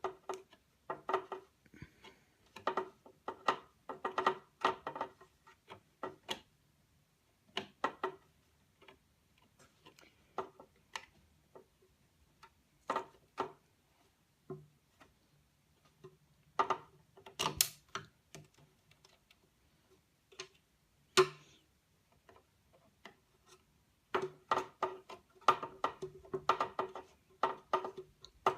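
Screwdriver working small hard-drive screws, giving bursts of quick clicking and ticking separated by pauses, with a few sharper single clicks; the screws turn stiffly, as if stripped.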